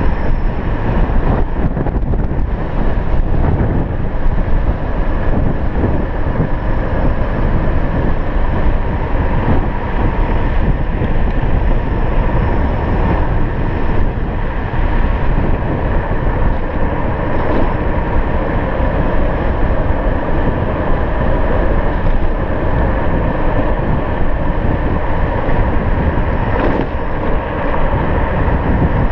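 Electric scooter riding along at steady speed: a constant rush of wind on the microphone and tyre noise on the road, with a faint steady whine.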